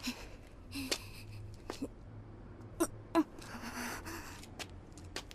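A character breathing hard after a fight, three gasping breaths, with a few short sharp clicks in between.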